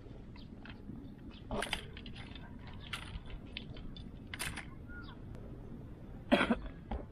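Fishing tackle being handled while a rod and spinning reel are set up: a scatter of small clicks and taps, with a louder knock about six seconds in, over a steady low background rumble.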